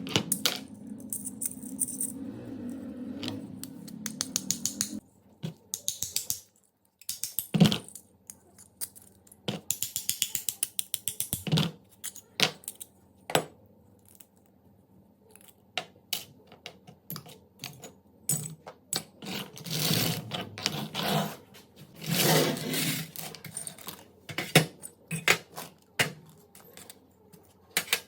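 Small metal pistol parts being worked by hand: many sharp clicks, short fast runs of ticks, and two longer scraping passes about two-thirds of the way through.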